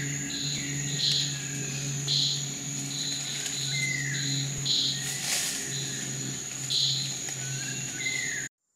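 Rainforest ambience: a steady high insect drone with pulsing calls about once a second, a few short falling whistled calls, and a low hum that comes and goes. There is a brief rustling noise about five seconds in, and the sound cuts off abruptly just before the end.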